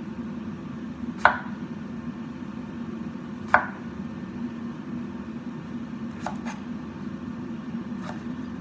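Knife chopping on a cutting board: five separate, unhurried strikes, two of them close together, over a steady low hum.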